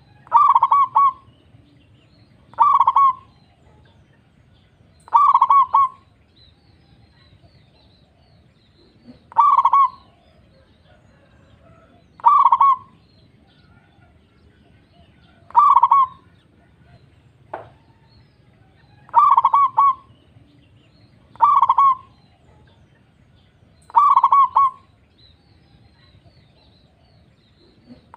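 Zebra dove (perkutut) cooing its rapid, rolling song: about nine short phrases, one every two to four seconds, over a low steady background hum.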